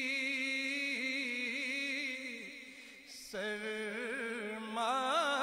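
A man reciting a naat in long, wordless held notes with a wavering vibrato. About three seconds in the note fades to a brief pause. He then takes up another drawn-out note that swells louder near the end.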